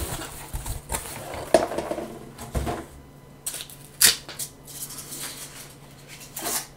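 Cardboard box rustling and scraping as an expansion tank is pulled out of it, with a few sharp knocks and clicks as the tank is handled; the sharpest comes about four seconds in.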